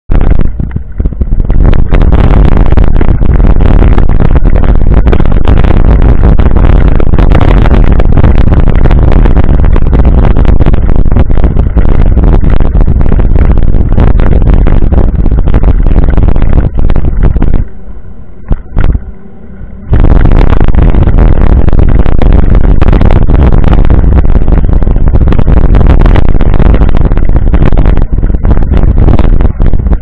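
Mountain bike rolling fast over a rough gravel and dirt road: heavy rumble and rattling from the tyres and frame, with dense clicks and knocks, and wind buffeting the camera microphone. The noise drops for a couple of seconds about two-thirds through, then returns.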